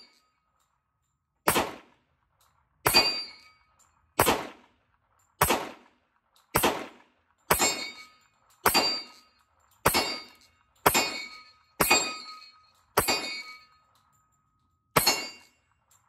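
Twelve shots from a Sig Sauer P320 XTEN Comp 10mm pistol. Each is a sharp crack with a short ringing tail, fired at a steady pace of about one a second, with a longer pause before the last shot.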